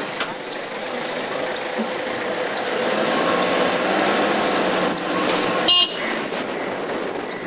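Steady road and engine noise from a vehicle driving along a town street. A short vehicle-horn toot comes near the end and is the loudest sound.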